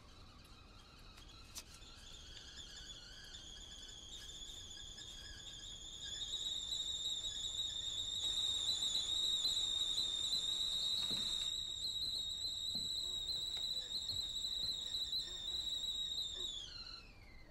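Stovetop kettle whistling as it comes to the boil: a faint whistle that climbs in pitch and grows louder, holds a steady high tone, then slides down and stops near the end.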